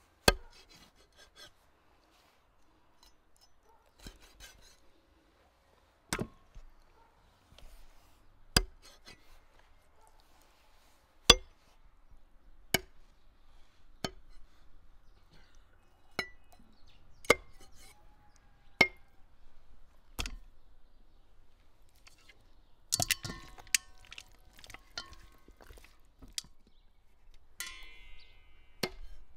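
Heavy cleaver chopping raw quail on a wooden chopping block: single sharp chops a second or two apart, with a brief ringing clink near the end.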